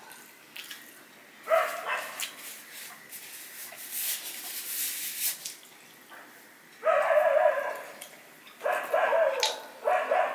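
Dogs barking: one bark about 1.5 s in, then a run of longer, drawn-out barks from about 7 s on. Between them come soft clicks and smacks of rice being mixed by hand on a steel plate.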